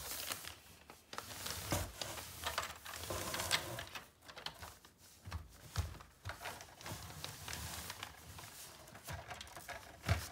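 Irregular plastic clicks and light knocks as a large LEGO brick-built building is handled and turned around on a table.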